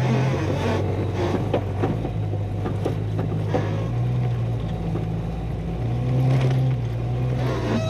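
Jeep Wrangler engine running under load as it drives through deep snow, heard from inside the cabin, with the noise of the tyres pushing through the snow; the engine note rises a little now and then.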